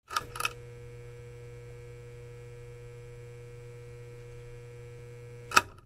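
A steady electrical hum, with two clicks as it begins and another click near the end.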